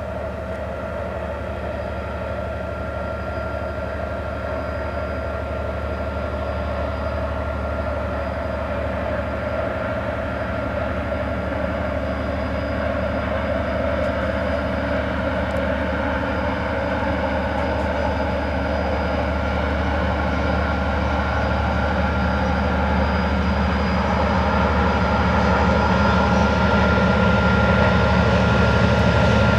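MÁV M62 diesel locomotive's two-stroke V12 engine working hard as it accelerates a loaded ore train, a steady low drone that grows louder as the locomotive approaches.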